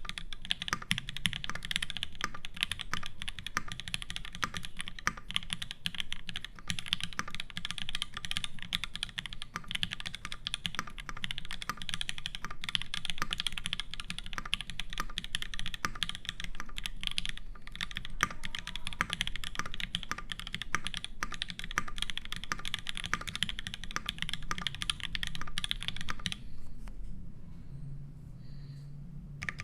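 Continuous fast typing on a custom ORI CLS-1 mechanical keyboard with lubed H1 switches in an aluminium plate and GMK keycaps: a dense run of keystroke clacks that stops about three seconds before the end.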